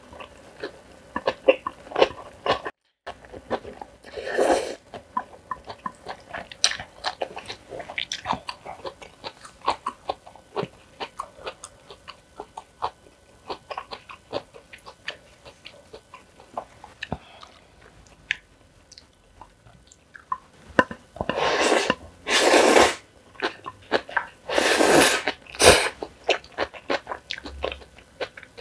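Close-miked mukbang eating of black-bean-sauce (jjajang) noodles: steady chewing with many wet mouth clicks and crunches. Several longer noodle slurps come about four seconds in and again between about 21 and 26 seconds.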